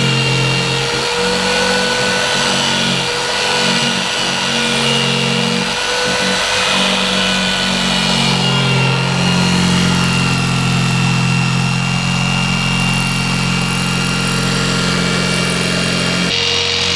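Corded jigsaw running steadily as it cuts through a sheet of black HDPE plastic, a continuous motor whine with the blade working through the plastic. Its tone changes near the end as the cut nears completion.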